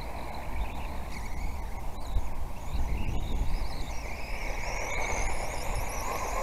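Small electric motors of 1/18-scale radio-controlled cars whining, the high pitch wavering up and down with the throttle, over a steady low rumble of wind on the microphone.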